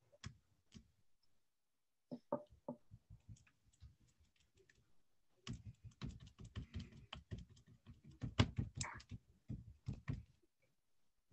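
Hands squeezing and kneading oobleck (cornstarch and water), giving irregular sticky clicks and squelches: a few near the start, then a dense run in the second half.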